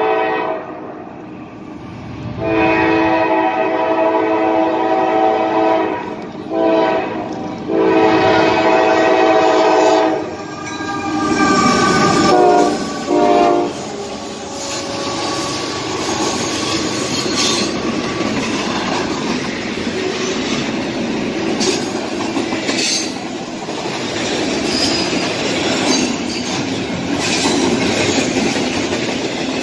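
Locomotive air horn sounding a long blast, a short one and a long one that drops in pitch as the locomotive passes, the pattern of a grade-crossing signal. After that the train's cars roll by with a steady rumble and clickety-clack of wheels over rail joints.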